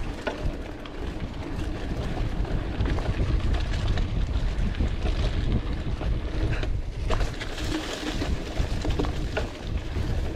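Mountain bike riding down a dirt singletrack: steady wind rush on the microphone over the noise of the tyres on dirt, with scattered clicks and rattles from the bike.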